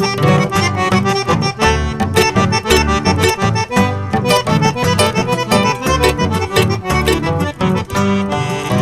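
Instrumental passage of a Paraguayan polka: accordion playing the melody over guitar and a steady pulsing bass line, with no singing.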